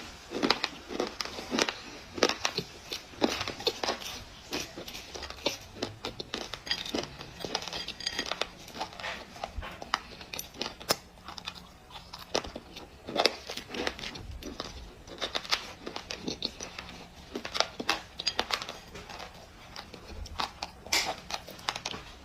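Someone biting and chewing crunchy black clay: a quick, irregular run of sharp crunches, some louder than others.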